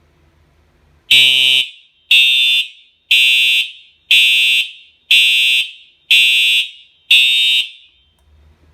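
Fire alarm horn sounding seven short buzzy blasts, about one a second, then stopping: the audible walk-test signal, sounded when the panel registers a tested device.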